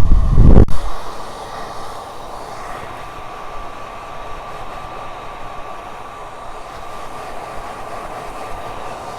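A loud low rumble, like a knock or handling on the microphone, cuts off abruptly within the first second. A steady whirring hum with a faint high tone follows, typical of a small electric motor.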